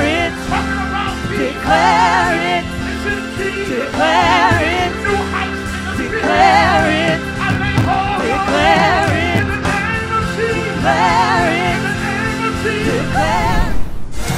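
A worship song: a solo voice sings long phrases with heavy vibrato, each about two seconds long, over sustained keyboard-like backing and bass. Near the end it breaks off abruptly into a different piece of music.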